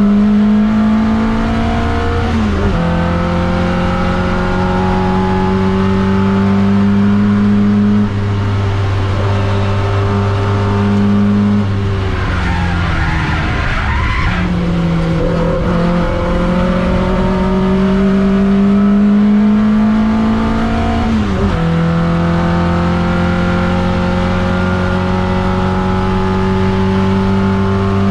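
TVR Vixen race car's engine heard from inside the cockpit, pulling hard with the pitch climbing through the gears and dropping at upshifts about two and a half seconds in and again near the end. Midway the revs fall away through downshifts as the car brakes for a corner, with tyres squealing briefly, before it accelerates again.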